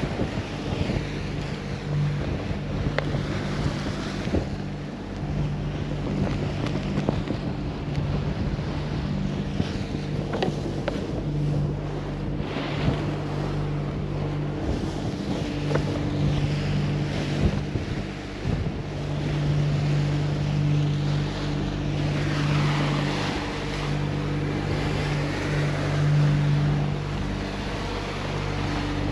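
Motor yacht's engines running steadily underway, a low drone that swells and fades, with wind buffeting the microphone.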